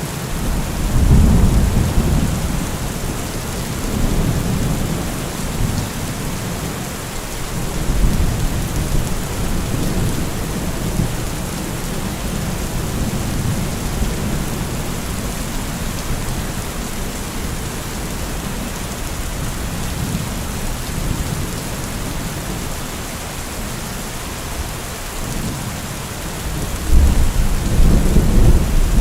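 Heavy rain falling steadily, a dense hiss of drops on surfaces. Low rumbling swells rise under it about a second in, again around eight seconds, and louder near the end.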